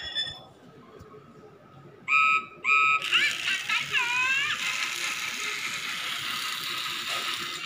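Talk 'N Action Thomas toy train sounding two short electronic whistle toots, then a few swooping electronic tones, as it is triggered by the magic track. Its small motor and gears then whir steadily as it runs.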